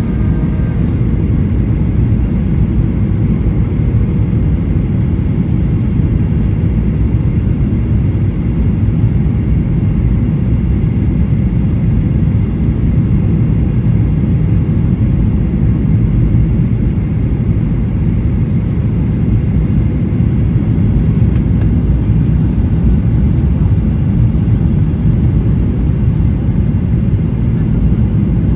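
Boeing 737-800 cabin noise on approach, heard from a window seat over the wing: a steady, even low rumble of engines and airflow.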